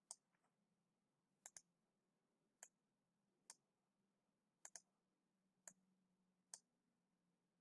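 Computer mouse clicking: about nine faint, sharp clicks at irregular intervals, a few in quick pairs, as the button is pressed to draw marks and pick tools in an image editor.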